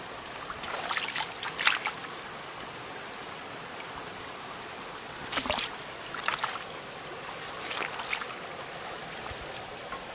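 Water running steadily in a stream, with a few short knocks and scrapes over it. The loudest knock comes about one and a half seconds in.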